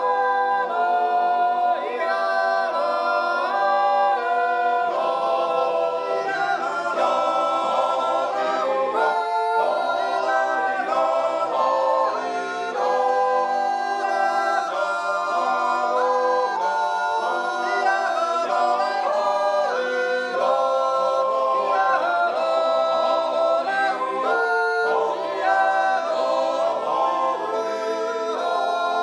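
Men's yodel choir singing a wordless Swiss natural yodel (Jutz) a cappella, held chords whose notes shift every second or so without a break.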